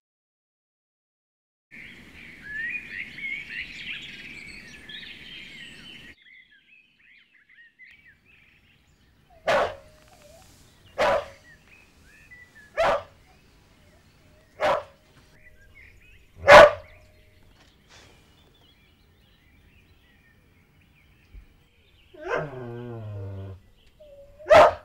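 A dog barking in single sharp barks, five of them spaced a little under two seconds apart, then a longer falling whine and one more bark near the end. The barking is preceded by a few seconds of birdsong.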